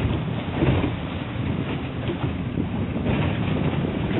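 Steady low rumble of a small fishing boat's outboard motor running under way, mixed with wind buffeting the microphone.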